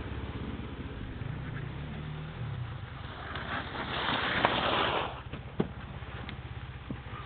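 Enduro dirt bike engines running and revving on a forest trail, with the pitch rising and falling once early on. A louder rush of noise lasts about a second and a half around the middle, followed by a couple of sharp knocks.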